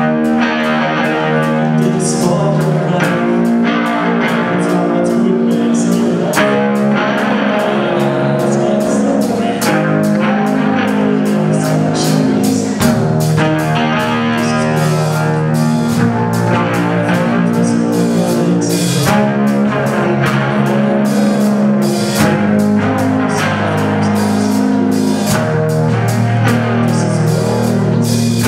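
Loud rock-style music with guitar and drum kit playing a steady beat.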